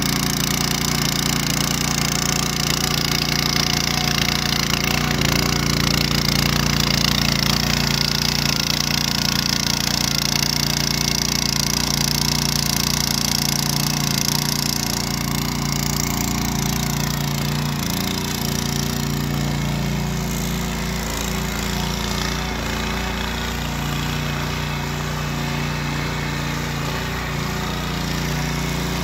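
Ruris 751KS motor cultivator's small petrol engine running steadily under load as its eight tines churn through garden soil. It gets a little quieter from about halfway through.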